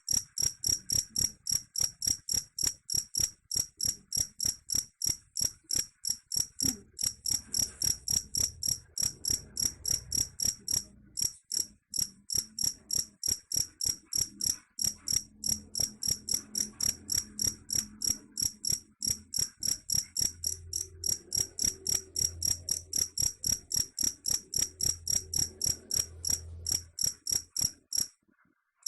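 Cricket chirping in a fast, even rhythm of about four short, high-pitched chirps a second, with a brief pause about eleven seconds in and another near the end.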